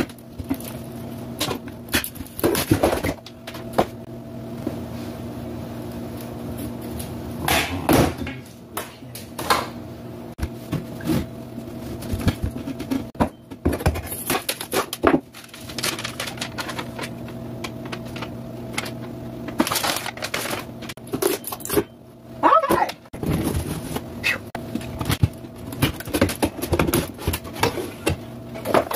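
Irregular knocks, clicks and scrapes of wood as a kitchen wall cabinet and its thin panels are handled and worked loose by hand, over a steady low hum.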